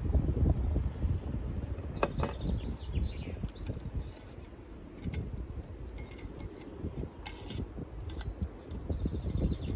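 Wind buffeting the microphone, with a few light clicks and metallic clinks from a Jetboil camping stove's parts being handled, about two seconds in, and again near the end.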